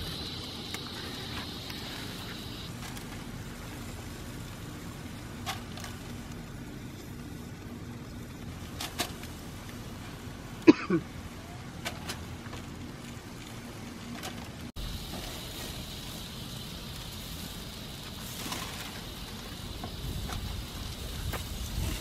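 Kebabs and corn on an open gas grill sizzling faintly over a steady low rush, with a few sharp clicks scattered through the middle.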